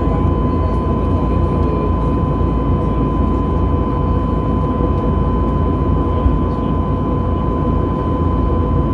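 Steady cabin noise inside an Airbus A320neo: an even, dense rumble of the jet engines and airflow, with a constant tone near 1 kHz running through it.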